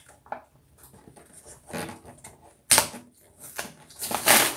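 Cardboard toy-train-set box handled close to the microphone: scattered rustles and taps, with a sharp knock just under three seconds in and a louder scraping rustle near the end.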